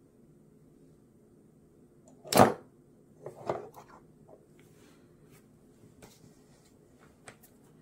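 Handling noises: one sharp knock about two seconds in, then a few lighter clicks and taps, over a faint steady hum.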